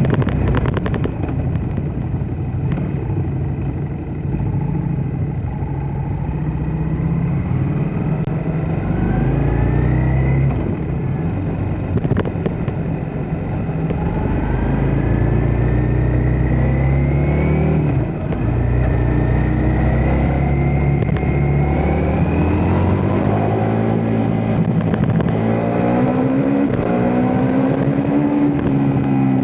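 Ducati Multistrada V4 S's V4 engine running under way, its pitch rising in several long pulls, with a brief sharp drop about eighteen seconds in, as at a gear change.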